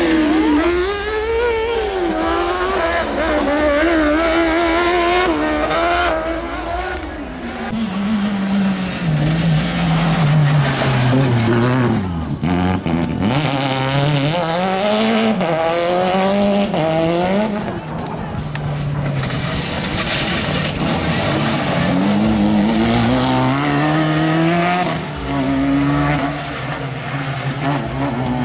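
Race car engines revving hard on an off-road track: a kart cross buggy and a Toyota Corolla rally car. The pitch climbs and drops repeatedly through gear changes and lifts, and the tyres squeal as the cars slide on the dirt.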